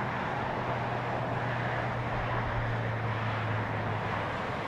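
Steady rushing background noise with a low, steady hum that fades out about four seconds in.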